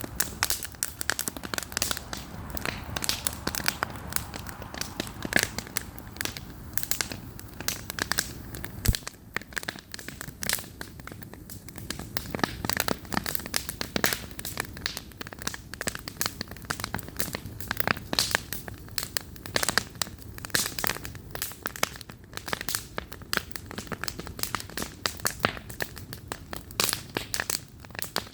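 Wood campfire crackling, with frequent irregular sharp pops and snaps over a low steady rumble.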